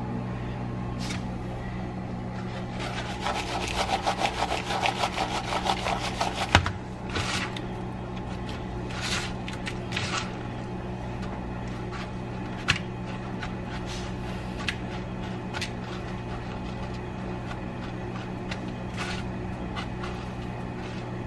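Hands breading mozzarella sticks in bowls of egg and flour: a few seconds of quick, rhythmic rubbing and scraping about three seconds in, then scattered light taps and scrapes, over a steady low hum.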